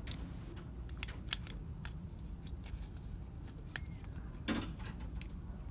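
Small clicks and taps of door-handle parts being handled and fitted into place, with a sharp click just after the start and a duller knock about four and a half seconds in.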